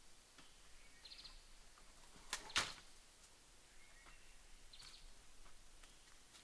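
Two sharp knocks about a quarter second apart, from bamboo slats of a hut wall being handled, with a few faint lighter clicks around them. Faint short bird chirps come in twice.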